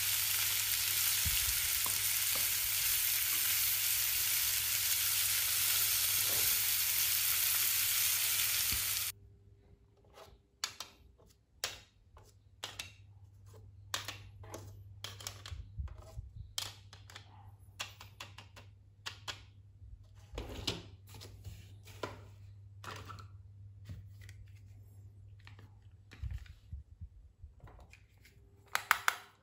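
A toy barbecue grill gives a steady sizzling hiss for about nine seconds, then it cuts off suddenly. After that come scattered light clicks and taps as plastic toy skewers, a plate and a cutting board are handled and set down.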